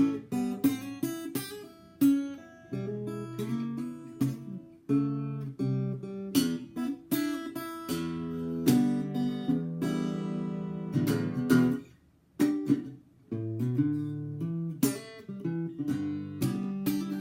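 Eko NXT parlour acoustic guitar, a small-bodied steel-string, being played in a run of chords and picked notes, with a brief pause about twelve seconds in.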